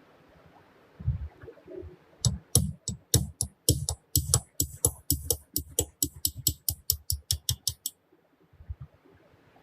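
A rapid run of short, sharp strokes, about four a second, each with a dull thud and a bright crack, like a hand tool worked back and forth on a part. A few single knocks come first, about a second in, and the strokes stop about two seconds before the end.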